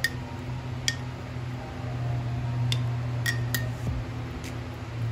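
Metal spoon clinking against a glass jar as cotton balls are stirred and pushed down into the acid mix, about six light clinks at irregular intervals, over a steady low hum.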